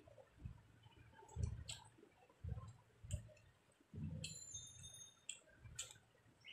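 Quiet sounds of eating rice by hand from a plate: fingers mixing and squeezing rice and curry, with several soft thuds and sharp clicks. A brief ringing clink comes about four seconds in.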